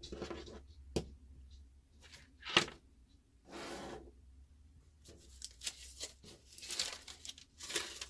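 Cloth or bedding being pulled off and handled, with rustling and rubbing. There is a sharp knock a few seconds in.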